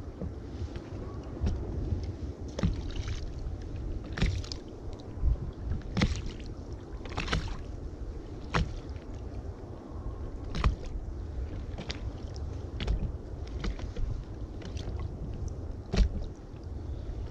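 Wind buffeting the microphone and water lapping against a small inflatable boat, with sharp knocks or slaps at irregular intervals of a second or two.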